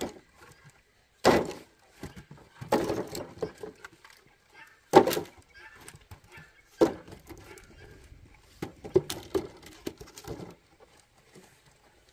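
Pieces of split firewood knocking against each other and against a woven bamboo basket as they are stacked into it: several hollow wooden thunks a second or two apart, with quieter scraping and rustling between.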